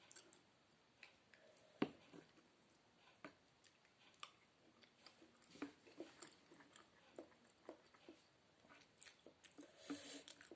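Faint, close-miked chewing of noodle soup: irregular soft mouth clicks and smacks.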